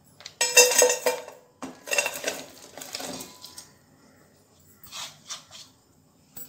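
A stainless steel pot clanking and briefly ringing on the stove, then crushed jaggery tipped from a plastic bowl rattling into the pot, with a few light taps near the end.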